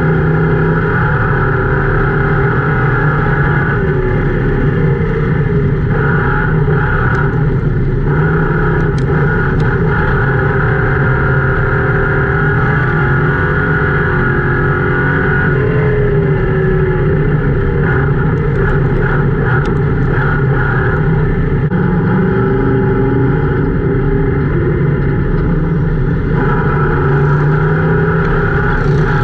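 Ford Crown Victoria's V8 engine running hard in a dirt-track race, heard from inside the stripped cabin. The sound is loud and steady, and its pitch eases and climbs a little in places as the throttle is worked through the turns.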